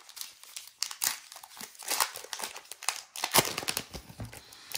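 Wrapper of a 2020 Topps Heritage baseball card pack crinkling and tearing as it is opened by hand: a run of sharp crackles, the loudest about three and a half seconds in.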